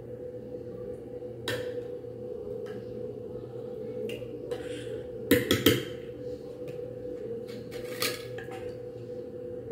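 Metal spoon clinking and scraping against a glass baking dish while spreading a cream layer, a few separate clinks with a louder cluster of them about five and a half seconds in.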